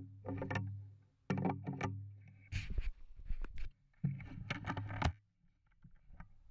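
Quiet background music of strummed acoustic guitar chords, several strums in a row.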